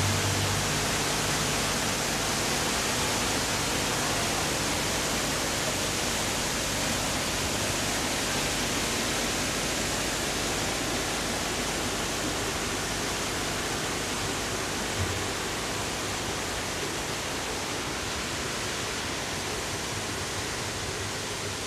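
Waterfall close by: a steady rush of falling water that slowly grows quieter.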